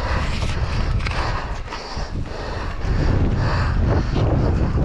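Mountain bike rattling and knocking as it is picked up off the grass and ridden off, with wind rumbling on the microphone; the noise grows louder about three seconds in as the bike gets under way.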